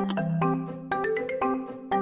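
Background music: a light tune of short, quickly struck notes over held low bass notes.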